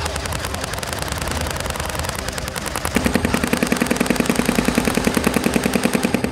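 Airsoft guns firing on full auto: a fast, continuous rattle of shots. About three seconds in the fire turns louder and more regular, with a buzzing hum under the shots.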